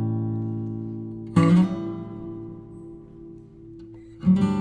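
Background music of strummed guitar chords. A chord struck about a second and a half in rings out and fades, and a new run of quicker strums begins near the end.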